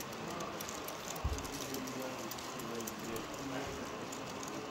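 Indistinct chatter of people talking in the background, with faint irregular clicking and a single low thump about a second in.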